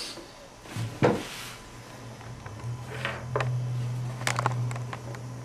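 Light clicks and knocks of Play-Doh toys and tools being handled, over a low steady hum that starts about a second in.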